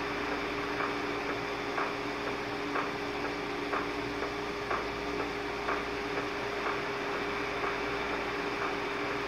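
A Galaxy radio's speaker playing a received signal: static hiss with a steady two-note hum, and a short tick about once a second.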